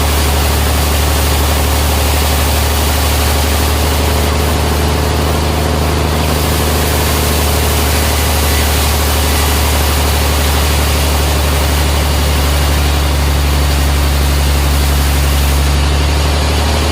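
Sawmill machinery running steadily: a constant low, heavy hum with a noisy hiss over it, unchanging throughout.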